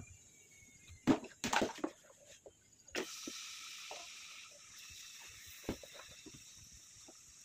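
Sliced onions tipped into hot oil in an aluminium pot: a few knocks and clatters, then a steady sizzle that starts about three seconds in and keeps going.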